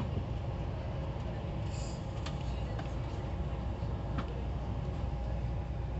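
Steady low rumble of a passenger train car running along the track, heard from inside the car, with a few sharp clicks scattered through.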